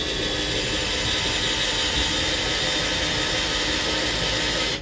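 IKEA FIXA 7.2 V cordless screwdriver/drill running steadily for nearly five seconds with its bit on a screw in a block of wood, starting and stopping abruptly. The screw goes in almost not at all, because the drill is switched to reverse and is turning the unscrewing way.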